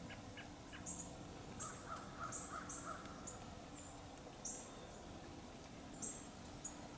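Faint woodland ambience with birds calling: a run of four or five repeated calls about two seconds in, and many short high chirps scattered throughout.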